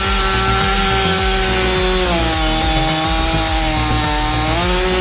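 Chainsaw cutting through wood, its steady whine dropping in pitch as it bogs into the cut about two seconds in and rising again near the end, with background music underneath.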